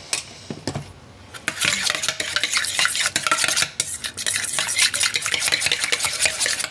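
Dressing being briskly stirred in a stainless steel mixing bowl, the utensil scraping and clinking against the metal sides. A few light knocks come first, then a fast, continuous stirring starts about a second and a half in.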